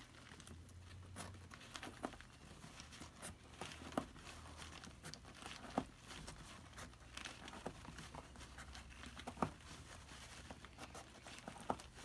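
Faint crinkling of brown packing paper wrapped around an oil filter as it is handled and cut at. A few sharp clicks come from the small hand tool working on the filter.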